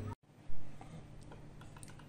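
A dull thump about half a second in, then a few light clicks and taps as small plastic parts and a screwdriver are handled on a tabletop.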